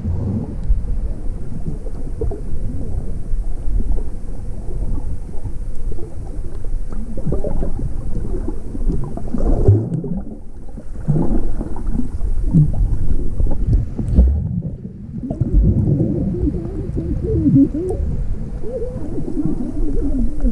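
Muffled rumble and gurgling of water heard through a camera held underwater, with low warbling sounds that rise and fall. The sound dips briefly twice about halfway through.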